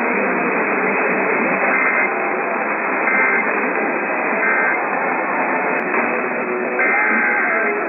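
Steady radio static from a receiver, with a weak broadcast signal showing faintly through it as brief tones.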